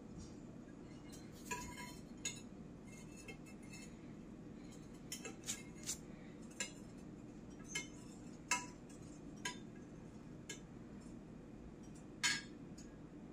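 Metal spoon clinking against a glass baking dish while stirring liquid Jell-O to dissolve it: about a dozen light, irregular clinks.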